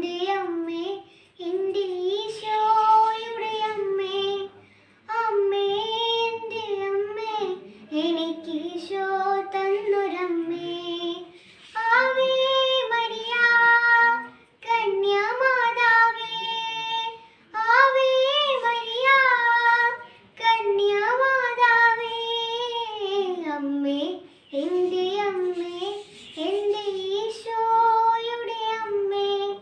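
A young girl singing solo and unaccompanied, in phrases of about two to four seconds with brief pauses for breath between them.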